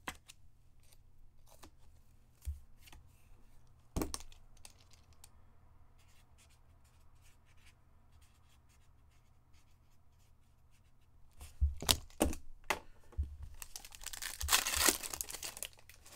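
Quiet handling of trading cards with a few light clicks and taps, then a hockey card pack's wrapper torn open and rustled for about a second and a half near the end.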